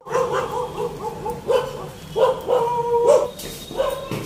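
A dog whining and yelping in a series of short, high cries, with one longer held whine a little past halfway.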